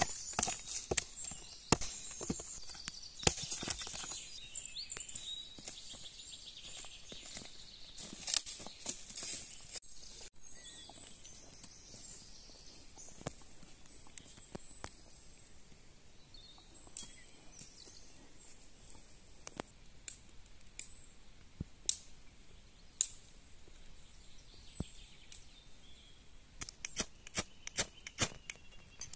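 Hatchet chopping a mossy branch laid across a rotten log: a series of sharp strikes in the first few seconds. After that come scattered light clicks and ticks, with a quick run of clicks near the end.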